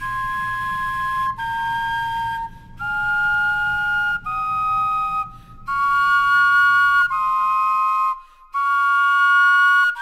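Carved carrot flutes playing a slow melody in two parts, about eight held notes of a second or so each, with short breaks between them.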